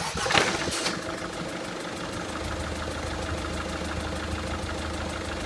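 Citroën Xsara Picasso 1.6 HDi diesel engine cranked by its newly fitted starter motor. It catches within about half a second and settles into a steady idle, a test start of the replacement starter.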